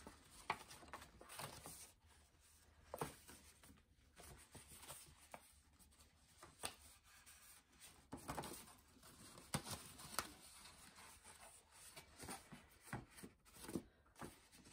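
Faint, intermittent rustling and soft crinkling of patterned scrapbook paper being handled and folded up along its score lines into a box, with a few light taps of the sheet against the work surface.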